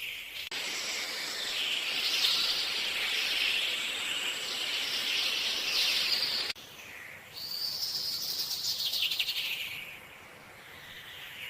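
Birds chirping and calling in a dense high-pitched chorus, broken by abrupt cuts where the sound changes suddenly, about half a second in and again about halfway through, and fading lower near the end.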